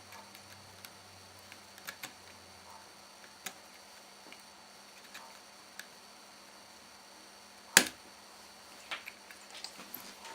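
Scattered small clicks and taps of laptop parts and tools being handled, with one sharp, louder click about three-quarters of the way through.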